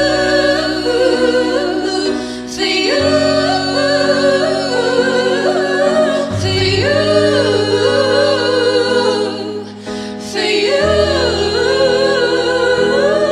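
A pop-rock band's song playing on: singing that slides up and down over held bass chords, which change about every three to four seconds with a cymbal-like crash at each change.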